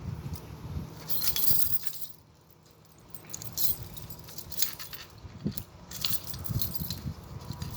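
A ring of metal keys jangling and clinking in the hand, in irregular bursts with a short lull about two seconds in.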